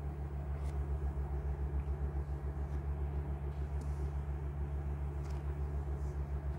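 Steady low hum of background noise, with a few faint soft ticks.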